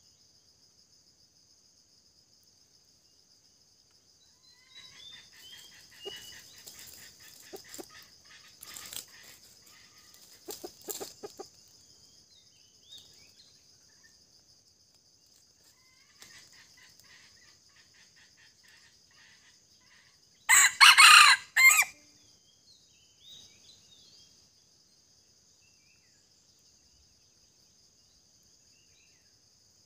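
Red junglefowl (wild chicken) rooster crowing once, loud and short, about two-thirds of the way through, after scattered softer clucking calls. A steady high insect drone runs underneath throughout.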